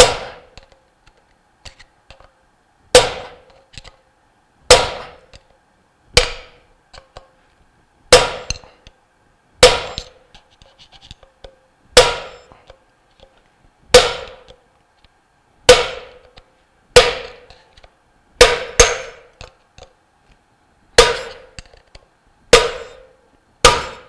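Hammer striking a screwdriver set in a notch in a heated shaft sleeve, driving the Loctite-held sleeve off an electric pump motor's shaft: about fifteen sharp metallic blows, one every second or two, each with a short ring.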